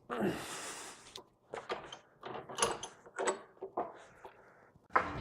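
Handling noise from metal tools and axle parts: a brief scrape, then a string of light clicks and knocks. Guitar music starts near the end.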